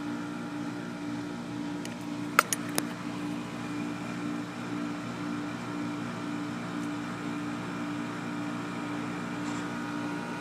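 A steady machine hum with several low tones throughout. About two and a half seconds in, a sharp click followed by two lighter clicks as a caulking gun is squeezed.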